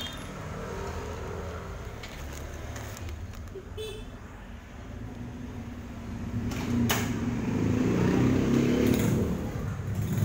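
A motor vehicle's engine running, a low steady rumble that grows louder about two-thirds of the way through, with a couple of sharp clicks.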